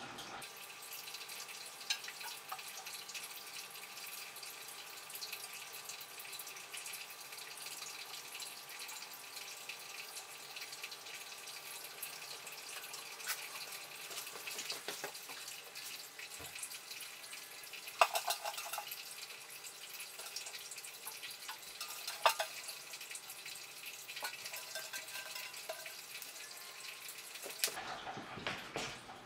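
Faint water sounds from a hand working in a small glass aquarium: light dripping and trickling over a steady hiss, with a few sharp clicks, the loudest about 18 and 22 seconds in.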